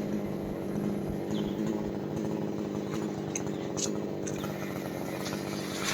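Two-stroke chainsaw idling steadily after coming off the throttle, with a few faint ticks about halfway through.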